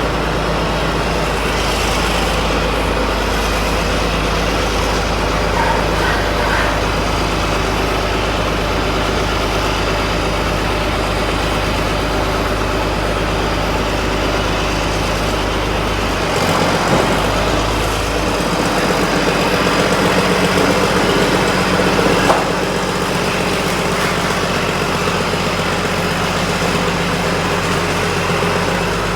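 An engine idling steadily, its low hum shifting about two-thirds of the way through.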